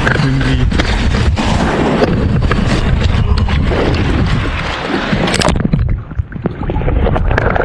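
Strong wind buffeting the microphone: a loud, steady rush, heaviest in the low end, with scattered clicks and knocks.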